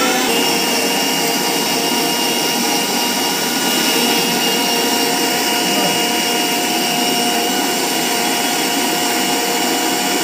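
Indian mixer grinder (mixie) running steadily, its jar grinding a wet masala paste.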